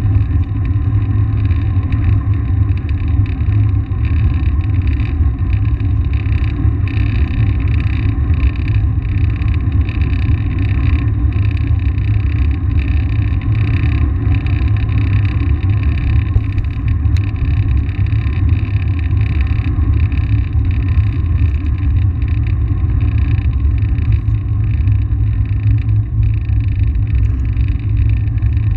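Steady wind rumble on the microphone of a camera mounted on a moving bicycle, loud and unbroken throughout.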